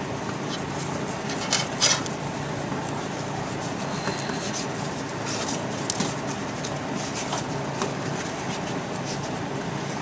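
Nylon seatbelt webbing handled and slid around a tubular steel frame bar, with a few short scraping rustles over a steady rushing background noise.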